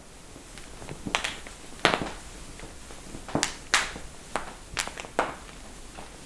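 A run of sharp cracks and pops from joints being manipulated, about nine separate pops spread over roughly four seconds, some coming in quick pairs.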